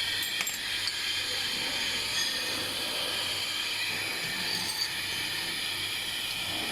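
Steady hiss and low hum of running filling machinery, with a few faint light clicks of parts being handled.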